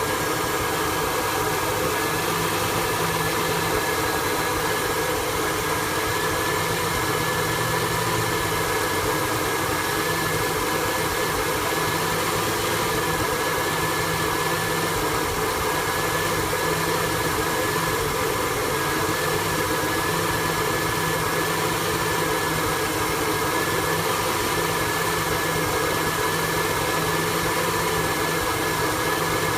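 1974 Ford F-100 engine idling steadily after a swap to electronic fuel injection, with an idle the owner calls rough.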